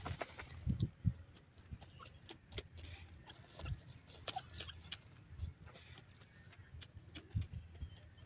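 Grey francolin pecking and scratching at dry, stony soil: a run of irregular sharp taps and clicks, with a few soft low thumps, and no calling.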